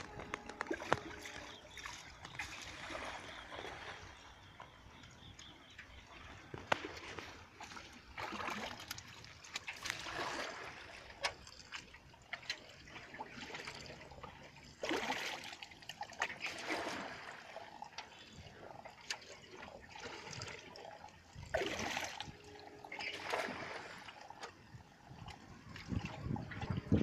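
Water splashing and sloshing in short, irregular swells, with scattered small knocks.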